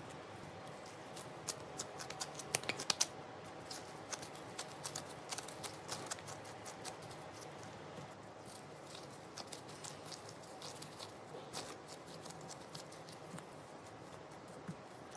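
Gloved hands placing and shaping cookie dough balls on a lined baking tray: a scatter of light clicks and taps with glove rustle, densest about two to three seconds in, sped up to double speed.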